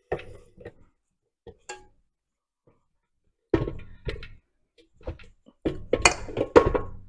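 Metal stand mixer being handled after kneading, not running: a sharp click near the start, then bursts of knocks and metal clanks from about halfway, loudest near the end, as the dough hook and steel bowl are worked loose.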